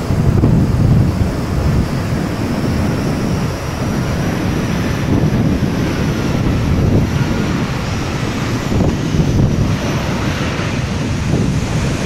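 Strong gusty wind buffeting the microphone in a typhoon, with the jet engines of a landing ANA Boeing 737 whining faintly underneath. The engine sound grows near the end as the airliner rolls close past.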